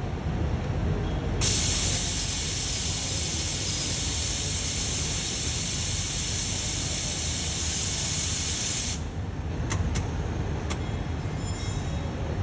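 Automatic laser welding head running a weld pass, its gas hissing steadily for about seven and a half seconds, switching on abruptly and cutting off sharply, over a low machine hum. A few light clicks follow the hiss.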